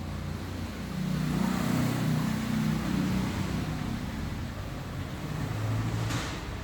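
A motor vehicle's engine running steadily, louder from about a second in. A brief hiss comes near the end.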